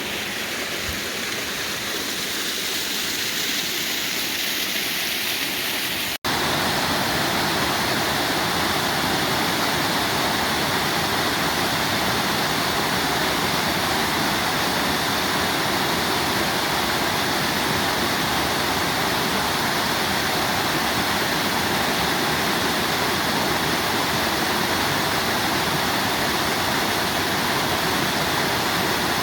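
Waterfall rushing steadily. About six seconds in there is a split-second dropout, and after it the rush is louder and fuller.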